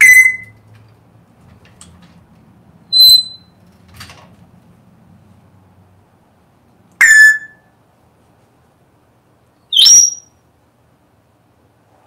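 African grey parrot giving four short, loud whistled calls about three seconds apart, the last one sliding upward in pitch.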